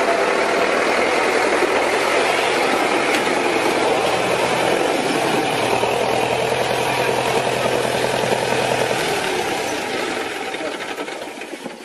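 Tractor engine running steadily with a dense clatter, dying away near the end, with people's voices mixed in.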